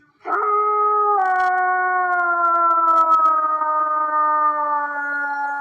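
A canine howling: one long call that starts about a quarter of a second in, steps down slightly in pitch about a second later, then slowly sinks.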